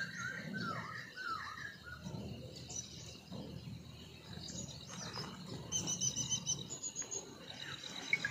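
Birds chirping and calling: short falling chirps in the first second or so, then a quick high trill about six seconds in.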